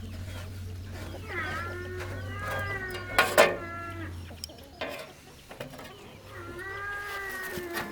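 Two long, drawn-out animal calls, the first lasting about three seconds and the second a little over one, over a low steady hum that stops about halfway through. A sharp knock sounds during the first call.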